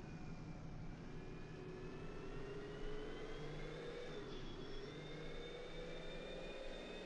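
ATV engine running, its pitch rising and falling slowly with the throttle, with a thin high whine over it.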